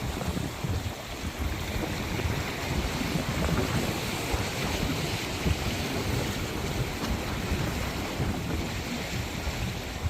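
Sea waves washing steadily onto a shore, with wind buffeting the microphone.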